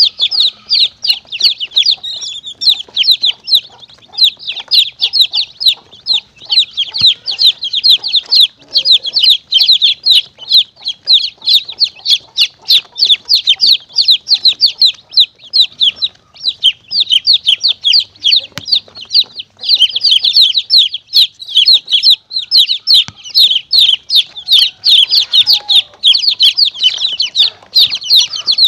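Chicks peeping continuously: a dense chorus of short, high, falling peeps, many each second. It is a caller recording played to lure monitor lizards and mongooses.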